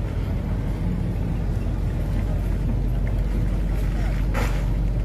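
Speedboat engine running steadily under way, with the rush of water along the hull; a short burst of noise about four and a half seconds in.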